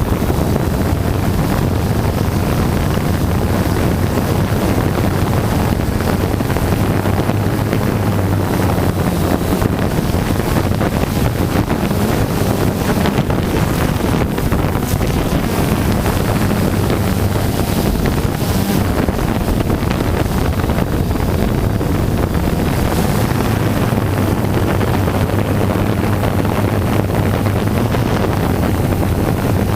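Steady engine drone with wind buffeting the microphone, from the aircraft carrying the camera; a constant low hum runs under a rushing noise.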